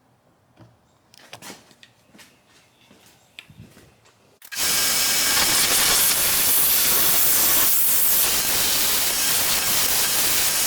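A few light knocks and clicks of handling. About four and a half seconds in, a power tool starts abruptly and runs with a steady, loud noise, flattening the end of a cutlass handle.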